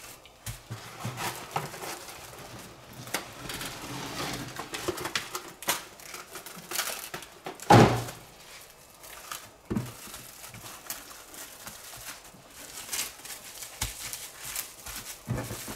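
Plastic cling wrap crinkling and rustling in short, irregular crackles as it is pulled over and pressed around slabs of raw beef ribs, with one much louder thump about eight seconds in.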